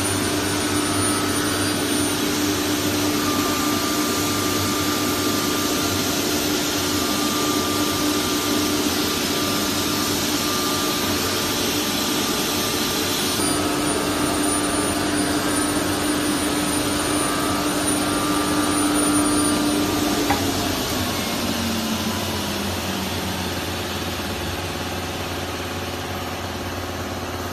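Saw-blade CNC router running and cutting a board panel, with dust extraction rushing steadily. About twenty seconds in, the machine's hum drops in pitch and fades as the spindle slows, while the steady rushing carries on.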